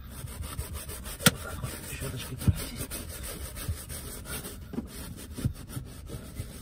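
A soft-bristled wooden shoe brush scrubbing car floor carpet in quick repeated strokes, working sprayed-on cleaning solution into the pile. A few sharp knocks cut through, the loudest about a second in and another about two and a half seconds in.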